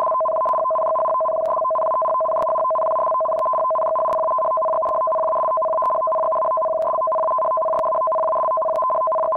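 Earthquake early warning alarm: a steady electronic two-tone alert, a lower and a higher pitch sounding together without a break, at an even level.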